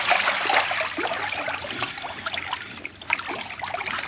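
Water churning and splashing with many small slaps as a tightly packed crowd of fish thrashes at the surface of a small pond. It eases off briefly about three seconds in.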